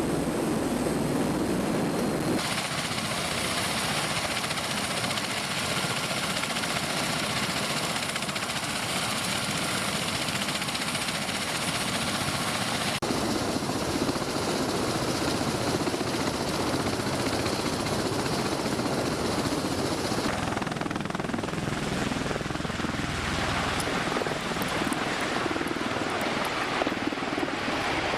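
AH-1Z attack helicopter's engines and rotor running in flight, a steady dense noise whose tone shifts abruptly a few times.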